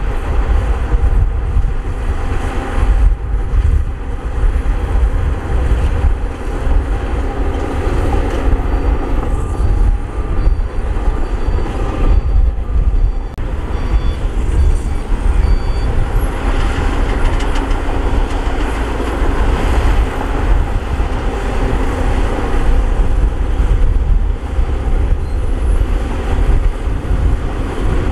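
Heavy earthmoving machinery working: a large diesel engine runs steadily with a deep rumble.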